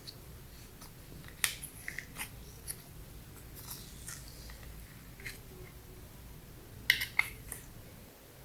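Slime being squished and kneaded by hand, giving irregular sticky clicks and small pops, with a short cluster of them about a second and a half in and another near the end.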